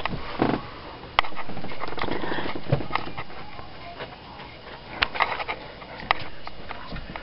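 Hushed breathing and stifled snickering close to the microphone, with rustling and several sharp clicks.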